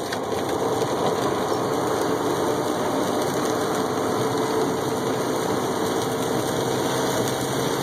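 Semi truck's engine running steadily with road noise, heard from inside the cab while driving; it gets a little louder over the first second, then holds even.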